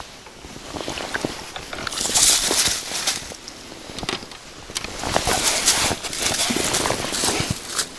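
Water splashing in bursts, with clicks and knocks, as a hooked crucian carp is played at the surface near the bank.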